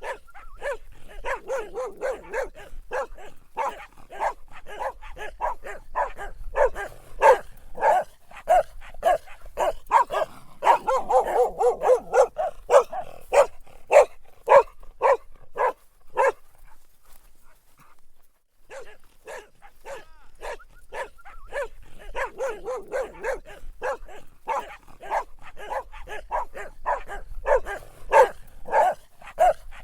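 Dog barking in rapid, repeated short barks, several a second. The barking pauses for about two seconds just past the middle, then starts again.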